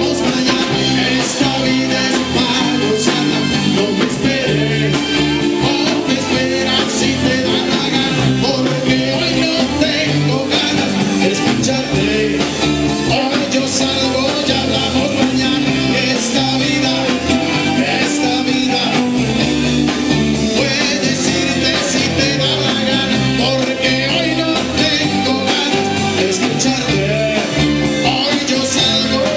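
Live band playing an upbeat Latin dance tune on drum kit, congas and guitar, with a lead singer.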